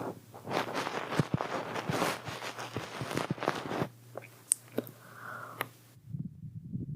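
Close-up scratching and rustling of an ear pick's cotton puff against a microphone's ear, a dense crackly sound with sharp clicks. About six seconds in it stops, leaving a fainter low rumble.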